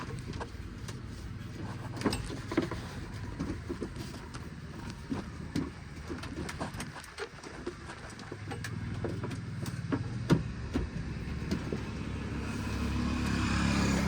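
Heavy earthmoving machinery with its engine running steadily, and scattered clanks and knocks throughout. The engine grows louder near the end.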